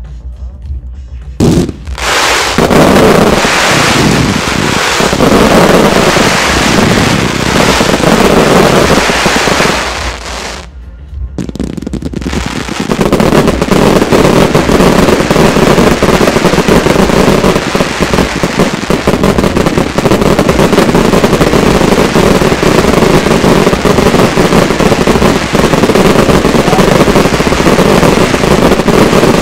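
Fireworks finale: a dense barrage of aerial shell bursts beginning suddenly about a second and a half in. It eases briefly around the middle, then resumes as an unbroken wall of rapid bangs and crackle.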